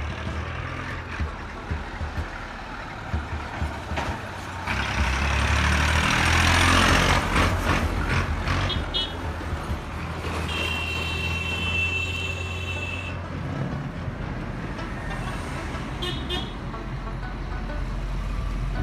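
Road traffic: a vehicle goes by, loudest a few seconds in, and a horn sounds for about two and a half seconds around the middle, over a steady low hum.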